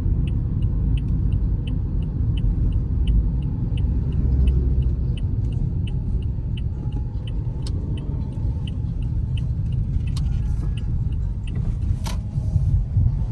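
Low rumble of a car on the move, road and engine noise heavy in the bass, with a faint steady ticking about two and a half times a second and a single click near the end.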